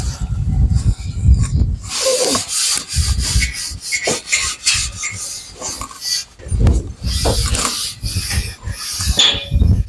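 Scotch-Brite scuff pad rubbing over the painted steel Bilco cellar doors in uneven strokes with short pauses, scuffing the old enamel as preparation for painting.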